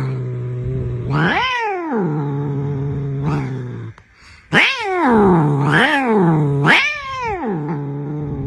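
A cat yowling in two long drawn-out calls, the pitch swooping up and falling back several times in each.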